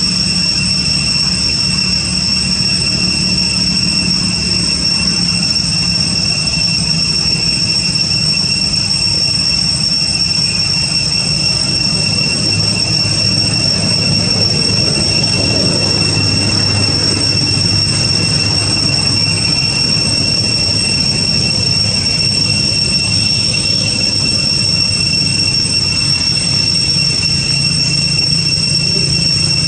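Cicadas droning in a steady, unbroken high-pitched whine, over a low rumble.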